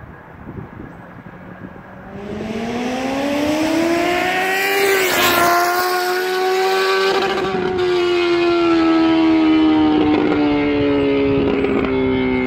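2014 Honda CBR1000RR's inline-four engine through an unbaffled Austin Racing GP2R carbon exhaust, very loud. Its note climbs in pitch as it grows loud, breaks briefly about five seconds in, then holds high and slowly drops in pitch.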